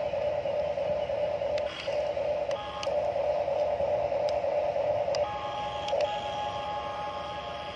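Huina radio-controlled toy excavator's electric gear motors whining as the bucket dumps and the cab swings round. The buzz breaks off and restarts a few times and changes tone about five seconds in as a different motor takes over.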